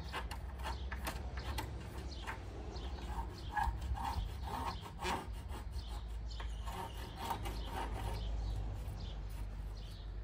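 Hand tool rubbing and rasping along the edge of a timber plank in short, irregular strokes as the wood is shaped by hand.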